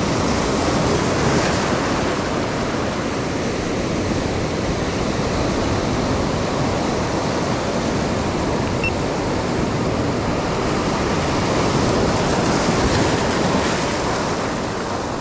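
Ocean surf breaking and washing over the rocks of a stony beach: a steady rushing wash that swells slightly now and then.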